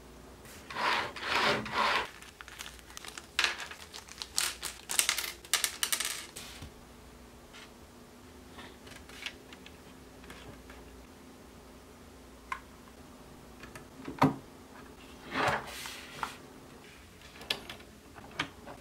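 Plastic and metal parts of an HO scale model steam locomotive being handled and fitted by hand: a run of small clicks, taps and rubbing in the first few seconds, then a few separate sharp clicks later on.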